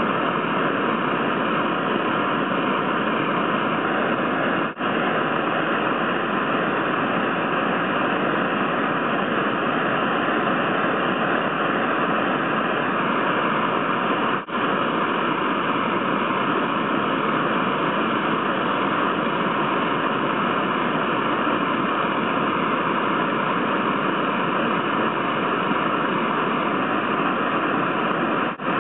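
Steady hiss like static, with no other sound standing out. It drops out very briefly about five seconds in, again about fifteen seconds in, and once more near the end.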